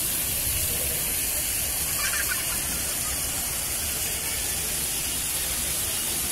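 Steady rush of running spring water flowing and splashing over a shallow stone bed.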